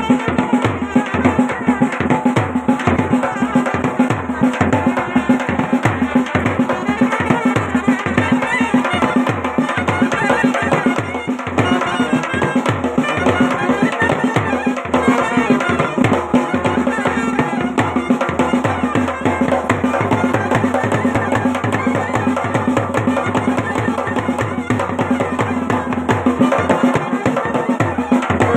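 Himachali traditional band baja playing live: drums beating a fast, steady rhythm under a held droning note and a busy wind melody.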